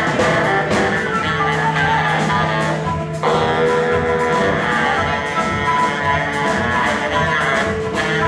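Live rock band playing loudly: electric guitar over a drum kit, with a steady beat.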